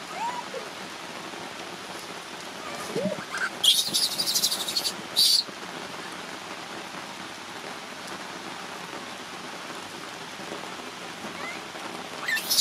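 Steady heavy rain falling, with a baby monkey crying out in shrill, frightened screams from about four seconds in and once more briefly just after, and a few short soft calls before that.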